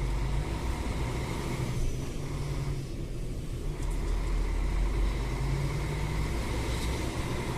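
Semi-truck's diesel engine running steadily at low speed while the tractor-trailer creeps forward to park, a continuous low drone that rises and eases slightly with the throttle.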